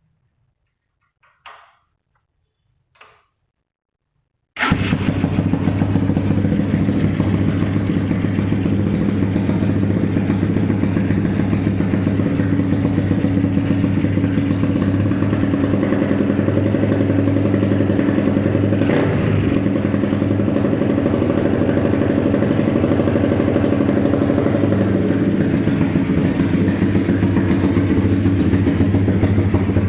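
Honda Mega Pro motorcycle's single-cylinder engine, fitted in a custom CRF-style build, starting: two short faint noises, then about four and a half seconds in the engine catches suddenly and settles into a steady idle for the rest, with one brief click about nineteen seconds in.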